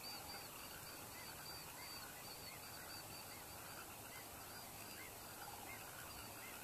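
Faint calls of a distant flock of large birds, many short honking calls overlapping and repeating without a break over a steady outdoor hush.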